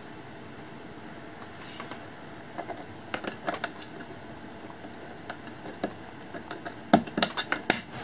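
Hard plastic cover being fitted over the neck of a monitor stand: scattered small plastic taps and clicks, then a quick run of sharper, louder clicks near the end as it snaps into place.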